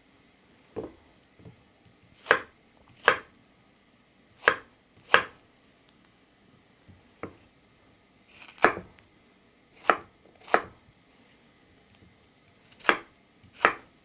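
Knife chopping a peeled yam into chunks: about a dozen sharp separate cuts, mostly in quick pairs, with pauses between them.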